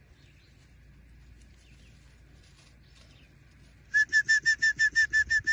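A bird calling a rapid series of about a dozen identical short, clear notes, about seven a second, starting about four seconds in. Before it, only faint distant chirping.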